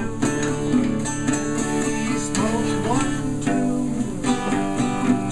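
Background music with a strummed acoustic guitar.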